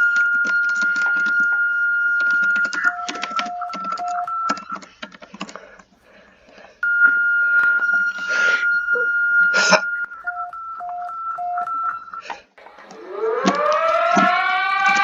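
Emergency alert alarm tones: a long steady high beep for about three seconds, then a run of short beeps alternating between a high and a lower pitch, the whole pattern played twice. Near the end a siren winds up, rising in pitch, over crackling noise.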